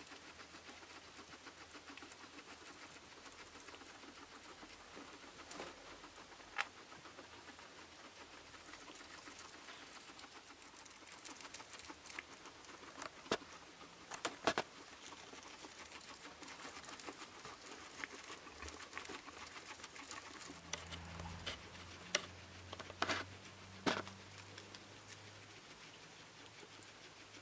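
Guinea pigs munching fresh grass: a faint, continuous crunching and rustling of chewing, with a few sharper clicks scattered through.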